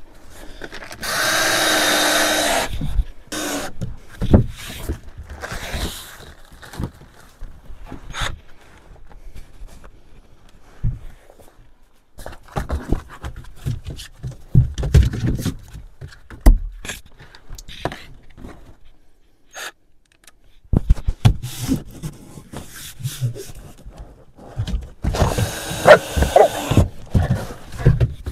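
Hands-on floor-covering work: a tool runs in two loud buzzing bursts of about two seconds each, one about a second in and one near the end, with scattered knocks, thuds and handling noises of the material between them.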